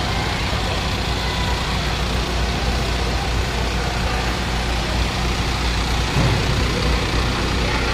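Diesel engines of Isuzu Elf minibuses idling steadily, a low even hum.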